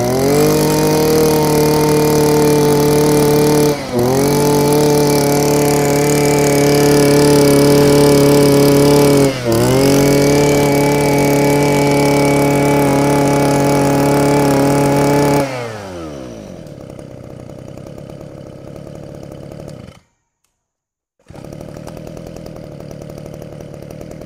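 Mitsubishi TL261 brush cutter's 26cc two-stroke engine revved up and held at full throttle, with two brief dips, then dropping back to idle about fifteen seconds in. The sound cuts out for about a second near the end, then the idle carries on.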